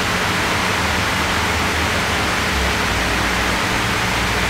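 A steady, even hiss with a faint low hum underneath, unbroken and without clicks or knocks.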